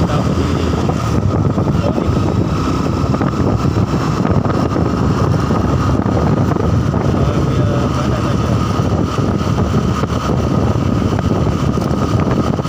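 Honda Verza 150's single-cylinder engine running steadily under way, with wind rushing over the microphone.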